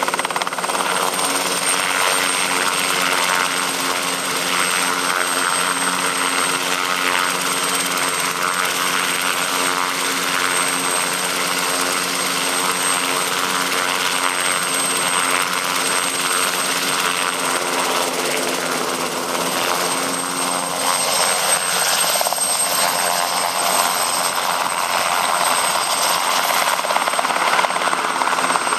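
Alpi Syton AH-130 light helicopter's engine and rotor running steadily in a low hover close by, with a thin high whine over the rotor noise.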